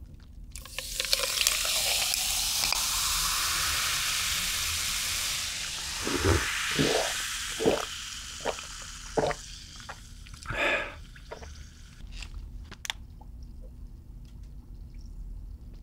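Coca-Cola poured into a glass mug over ice, fizzing with a steady hiss for about five seconds. It is followed by a few separate gulps as it is drunk, then small clicks and rustles.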